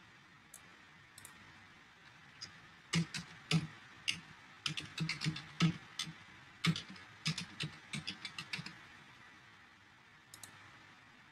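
Typing on a computer keyboard: a few separate clicks, then a quick run of keystrokes lasting several seconds that stops about two seconds before the end.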